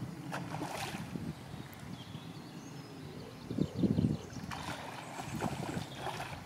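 A trout splashing at the water's surface: several short splashes in the last two seconds, after a dull low thump near the middle.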